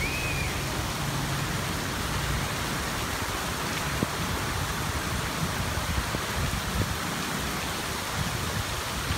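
Heavy rain falling steadily: a dense, even hiss with a few faint ticks of drops.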